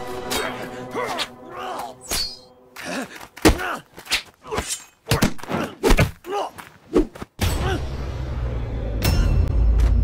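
Film fight sound effects: a rapid series of punch and kick impacts mixed with grunts and yells, then a steady low rumble with one more thud near the end.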